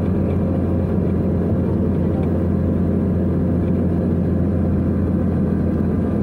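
Steady low drone of engine and road noise inside a moving car's cabin at cruising speed.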